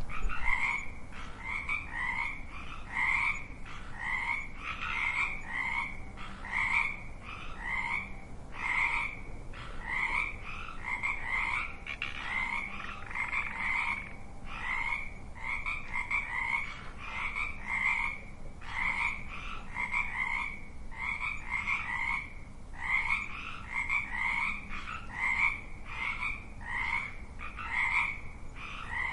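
Frogs croaking in a steady, unbroken run of short calls, roughly one or two a second.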